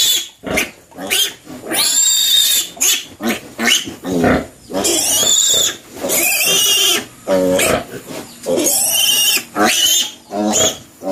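Piglet squealing loudly and over and over while it is held upside down by the hind legs and castrated with a scalpel and forceps. The squeals are high and arching, each about half a second to a second long, with short breaks between them.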